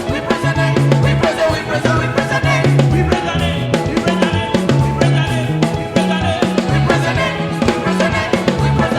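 Upbeat contemporary gospel praise music from a band, with a stepping bass line and a drum kit keeping a steady beat.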